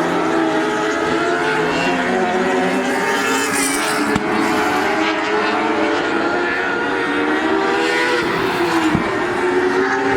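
A field of lightning sprint cars racing, their four-cylinder motorcycle engines revving high, several engine notes rising and falling at once as the cars lap the track.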